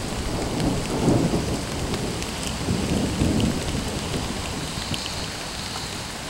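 Thunder rumbling in two swells, about a second in and again around three seconds, over steady rain falling with scattered drop ticks.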